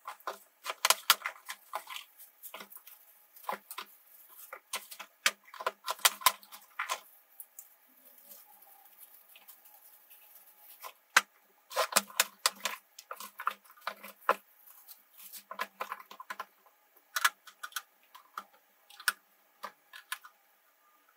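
Unpacking and handling: cardboard boxes opened, plastic wrapping rustled, and the hard plastic parts of conference microphone units clicking and knocking as they are taken out and set down. The clicks and rustles come in irregular clusters, with a quieter spell near the middle.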